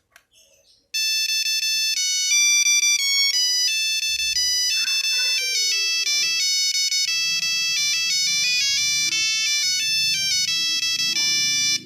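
Nokia 3310 monophonic ringtone: a quick melody of stepped beeping notes that starts about a second in and cuts off abruptly near the end.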